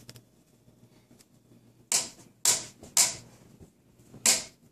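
Four sharp smacks: three about half a second apart, then a fourth after a pause of over a second.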